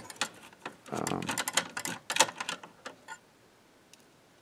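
Tools and metal parts clinking and rattling against the metal chassis of a tube reel-to-reel tape recorder as it is taken apart. A quick string of clicks and clatter lasts about two and a half seconds, then it goes near quiet with a faint tick or two.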